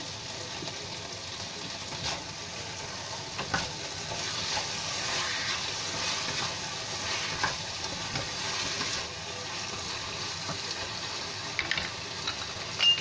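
Pork ribs and bitter gourd sizzling in a wok in a cornstarch-water sauce while a wooden spatula stirs them, with a few short knocks of the spatula against the pan. The sizzle swells through the middle.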